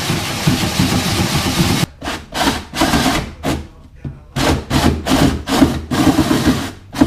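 Handheld power tool cutting into a Sea-Doo Spark's plastic hull to open a hole for a speaker. It cuts steadily for about two seconds, stops, then goes on in a run of short bursts, two or three a second.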